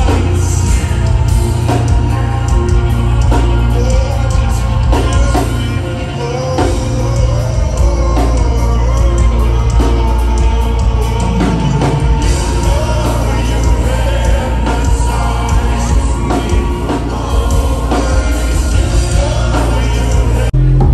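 Live rock band playing: a male voice singing a slow melody over heavy bass, keyboards, guitar and drums, loud and boomy in the low end as heard from inside the crowd. Just before the end the music changes abruptly to a louder, bass-heavy passage.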